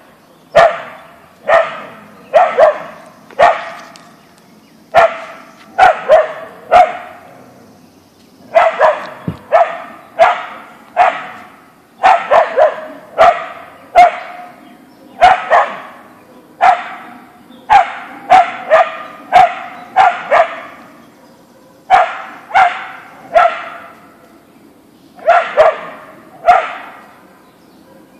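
A husky-mix dog barking repeatedly in quick runs of two to four barks, about half a second apart, with short pauses between runs.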